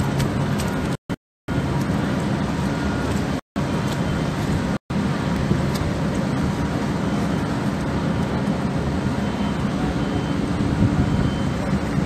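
Steady city street traffic noise, cutting out to total silence three times in the first five seconds.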